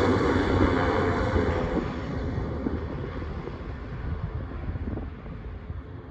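Turboprop engines of Air Tractor AT-802F Fire Boss amphibious air tankers running at taxi power, a steady propeller drone with a high whine, fading as the aircraft move away.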